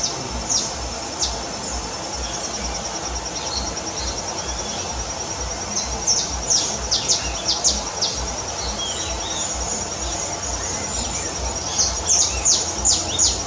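Garden birds chirping, with bouts of quick, sharp, high falling notes about six seconds in and again near the end, over a steady high-pitched pulsing insect trill.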